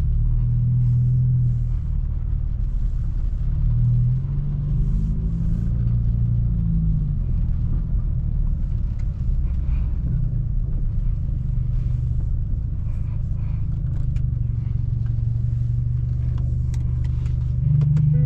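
Straight-piped BMW F30 328i's turbocharged four-cylinder running at low revs with a deep exhaust drone. The engine note rises and falls a few times over the first several seconds, then holds steady.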